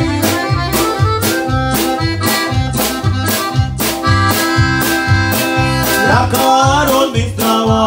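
Live band playing, an accordion carrying the melody over drums and keyboard, with a steady beat of about two per second. About four seconds in, the accordion holds one long high note, then slides away from it.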